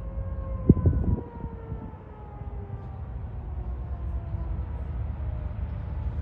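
Light single-engine propeller airplane running, its steady tone slowly falling in pitch, over low wind rumble on the microphone. A sharp knock comes about a second in.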